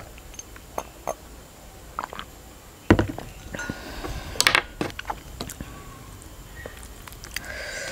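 A few soft swallows from a glass mug of milk, then the glass mug set down on the table with one sharp knock about three seconds in. A quick cluster of light clicks and clinks follows as wooden chopsticks are picked up.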